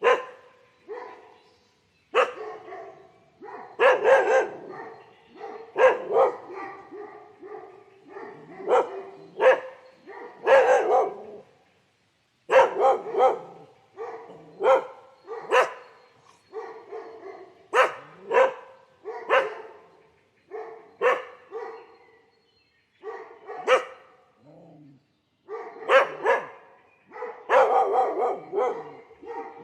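A dog barking over and over, in irregular runs of sharp barks separated by short pauses.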